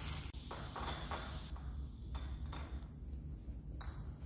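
Light taps and clinks of Christmas tree baubles being handled as they are taken off the tree and packed, over a steady low hum.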